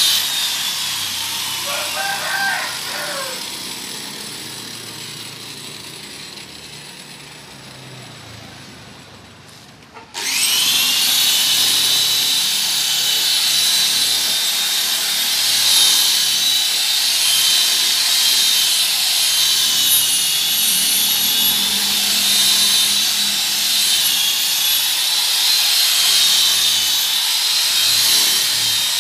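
Electric rotary polisher buffing dull car paint, its motor giving a high whine. The sound fades away gradually over the first ten seconds or so, then the polisher starts again about ten seconds in, its whine climbing quickly and then running steadily.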